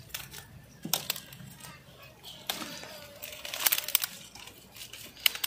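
Tender plant shoots being snapped off by hand and the leaves around them rustling: a handful of sharp snaps about a second in, then a quick run of snaps and rustling in the middle and a few more near the end.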